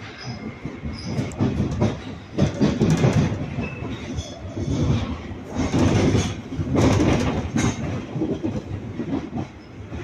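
Jubilee Line 1996 Stock train running at speed, heard from inside the carriage: a rumble of wheels on rail that swells and eases twice, with scattered sharp clicks.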